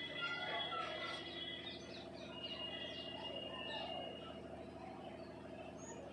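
Birds chirping and calling in the background: short chirps and a few held whistled notes, over a steady low hum.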